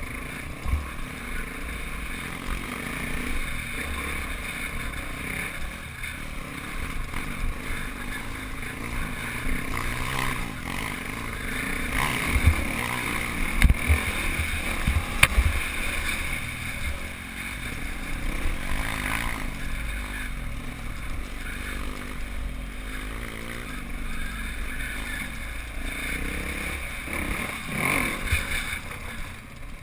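Off-road motorcycle engine running steadily at trail-riding speed, heard from on board, with a few thumps from the track's bumps around the middle.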